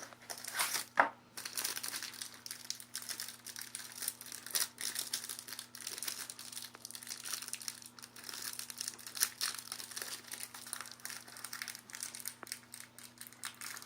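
Crinkling and crackling of plastic wrapping as a trading-card box or pack is unwrapped and handled, in many quick irregular crackles, with a faint steady hum beneath.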